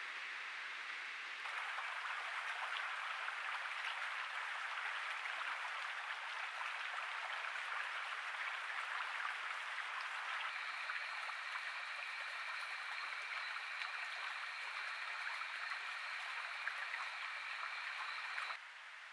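Trail-camera ambience: a steady hiss that changes abruptly at each cut between clips. In the later part two steady high-pitched tones join it, and both stop suddenly near the end.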